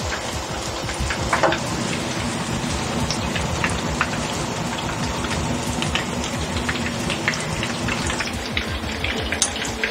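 Batter-coated shapla (water lily stem) pakoras deep-frying in hot oil: a steady sizzle full of scattered crackles and pops, with one louder pop about a second and a half in.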